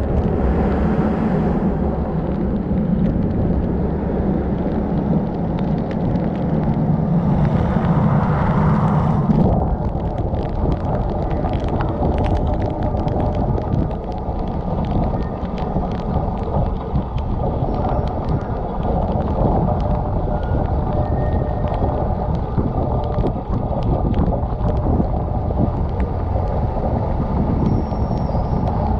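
Automatic car wash heard from a camera on the car: a rotating brush scrubbing over the car with water spraying, for about the first nine seconds. Then a steady rush of water pouring over the car, with many drops pattering on the camera.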